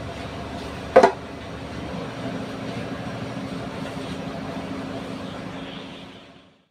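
A metal pot lid set down on a frying pan with a single clank about a second in, over a steady background hum that fades to silence near the end.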